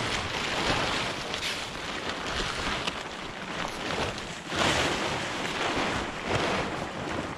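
Wet plastic tarp rustling and crinkling as it is handled and pulled back off a stack of lumber, with louder surges a little past the middle.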